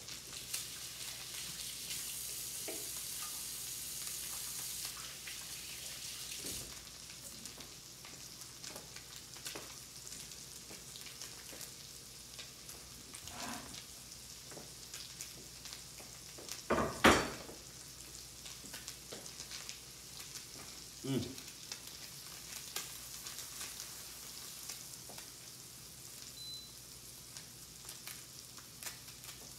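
Salmon fillets searing in butter in a stainless steel skillet: a steady sizzle with scattered crackles, louder for the first few seconds. About 17 seconds in a heavy double knock as a thick wooden cutting board is set down, and a lighter knock a few seconds later.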